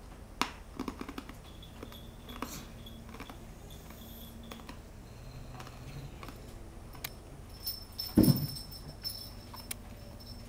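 A kitten scuffling and pouncing behind a curtain: scattered light taps and clicks, with a louder dull thump about eight seconds in.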